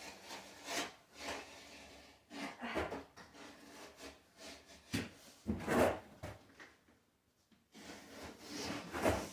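Razor knife cutting through the paper backing of a snapped drywall panel, with the panel being handled: a series of short scraping and rubbing strokes, the loudest about six and nine seconds in.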